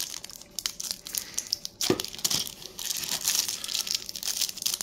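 Clear plastic packaging crinkling and crackling as it is handled and pulled at, with one louder knock about two seconds in.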